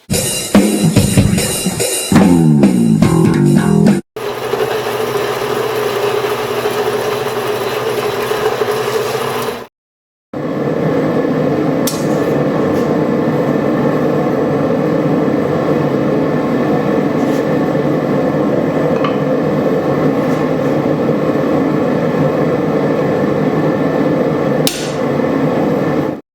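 Music with guitar and drums, dropping out briefly about four seconds in and again about ten seconds in.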